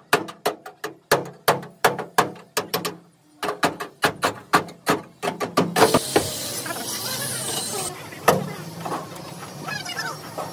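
Rapid hammering, about five sharp blows a second in two runs with a short pause between, then a couple of seconds of hissing.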